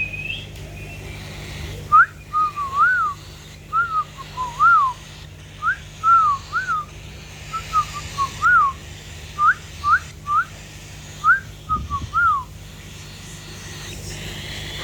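Whistling: a quick, irregular run of short, clear notes, each sliding up and down in pitch, lasting about ten seconds and stopping shortly before the end.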